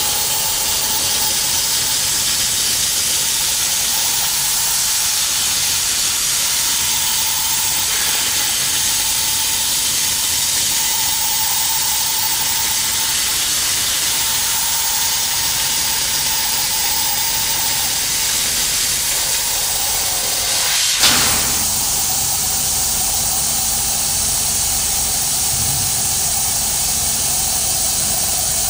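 CNC gantry cutting torch cutting steel plate: a loud, steady gas-and-cut hiss. A sharp crack about three-quarters of the way through, after which a low rumble joins the hiss.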